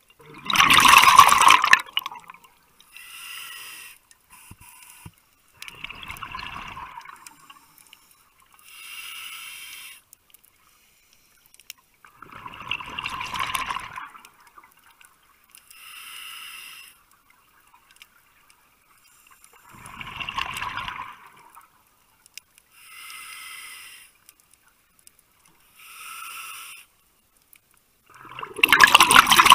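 A scuba diver breathing through a regulator underwater: a hissing inhalation through the regulator, then a loud rush of exhaled bubbles, repeating about every seven seconds.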